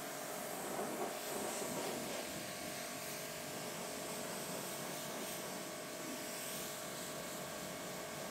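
BigBoi WashR pressure washer running steadily, a constant motor-and-pump hum with a hissing background.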